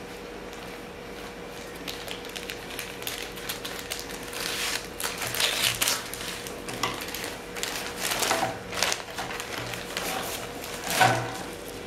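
Plastic courier mailer bag crinkling and rustling as it is cut open with scissors and pulled about, with irregular crackles and snips, the loudest near the end.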